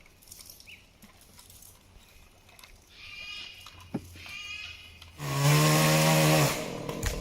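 Chainsaw revving sharply about five seconds in after a quiet stretch. It holds high revs for over a second, then drops back and keeps running more quietly.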